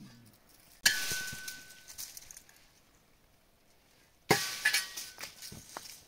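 Two sharp metallic clinks about three and a half seconds apart, each ringing briefly before dying away.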